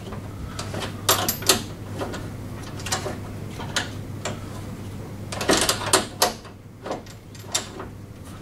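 Metal spanner clicking and clinking against the mower's handle nut and bolt while the plastic cam-lever handle is turned to tighten the clamp: a series of irregular sharp clicks, over a steady low hum.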